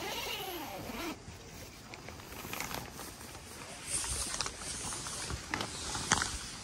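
A nylon tent door being unzipped and pushed open, with rustling fabric and scattered light clicks.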